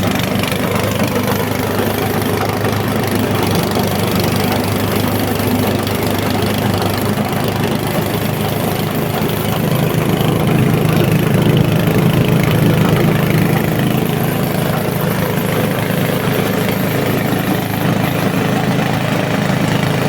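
Foam and fabric shredding machine running steadily with a low, even machine hum, growing a little louder for a few seconds around the middle.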